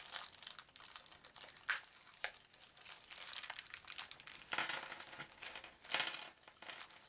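Thin plastic bag crinkling and rustling in the hands as it is opened, in irregular bursts, with louder crinkles about four and a half and six seconds in.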